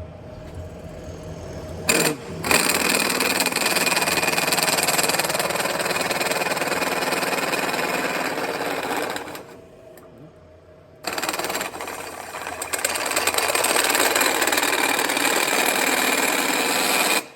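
Drill cutting a 1¼-inch hole through the steel wall of an emptied propane tank, with water as the coolant: a steady metal-cutting noise that starts about two seconds in. It stops for a second or two near the middle, then starts again and cuts off sharply at the end.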